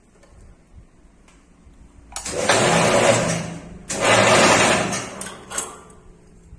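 Rebar ring making machine running in two loud spells of about a second and a half each, starting about two seconds in, with a low motor hum under a noisy metallic rush.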